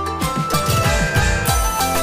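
Background music with a steady beat of deep drum hits, about four a second, under held melodic tones.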